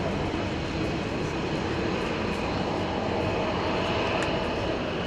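Jet-engine noise from a Boeing 787-8 Dreamliner with GEnx engines taking off: a steady, loud rumble.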